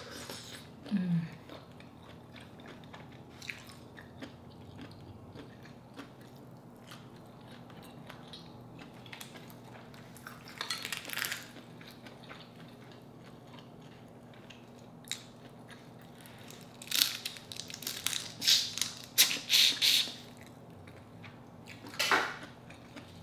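Close-miked eating of boiled crawfish and shrimp: chewing, with crawfish shells cracked and peeled by hand in short noisy bursts, loudest in a cluster in the last third. A short falling hummed "mm" from the eater about a second in.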